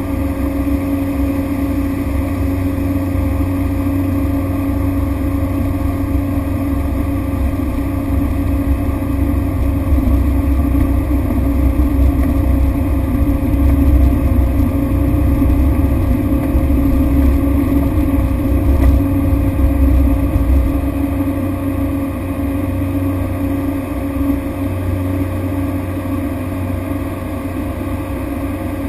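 Cessna Grand Caravan's single PT6A turboprop engine and propeller droning steadily, a low rumble with a steady hum on top, swelling a little in the middle and easing slightly near the end.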